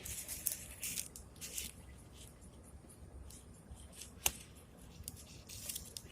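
Faint, scattered rustling and scraping, like leaves and twigs being brushed or the phone being handled, with one sharp click about four seconds in.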